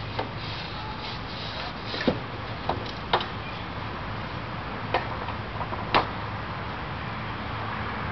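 A steady low hum under a faint hiss, broken by about six short, sharp clicks or taps at irregular intervals.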